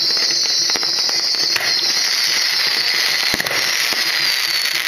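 Aerial fireworks display bursting overhead: a dense, continuous crackle with many sharp bangs scattered through it.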